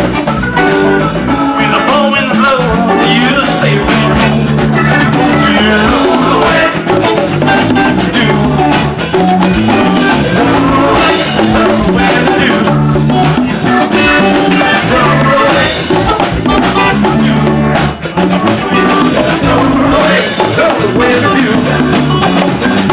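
A live band playing loudly: a pair of hand-played congas over a drum kit and other instruments, with a steady beat.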